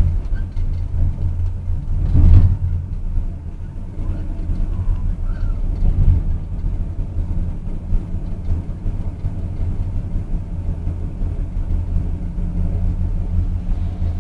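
Moving train's running noise: a steady low rumble, with a loud thump about two seconds in and a smaller one around six seconds.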